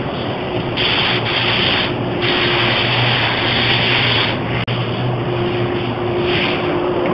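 Compressed-air paint spray gun hissing in bursts as the trigger is pulled and released, the longest lasting about two seconds, over a steady motor hum.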